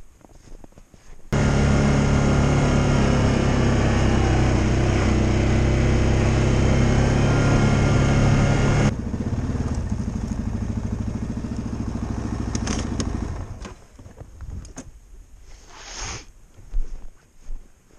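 A vehicle engine running steadily. It starts suddenly about a second in, drops abruptly in level about 9 seconds in, and fades out around 13 to 14 seconds, leaving faint scattered noises near the end.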